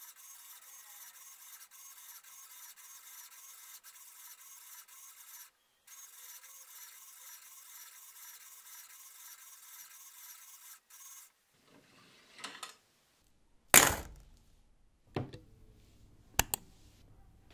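LEGO Technic wire-bending machine's electric motor and gear train whirring as it bends wire, with a short break about five and a half seconds in. The whirring stops about eleven seconds in, and a few sharp knocks follow, the loudest about two seconds later.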